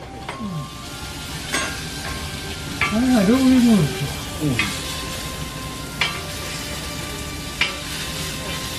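Pork frying on a flat steel teppan griddle, with a steady sizzle and several sharp clinks as the metal spatula strikes and scrapes the plate. About three seconds in, a person's voice briefly rises and falls over it.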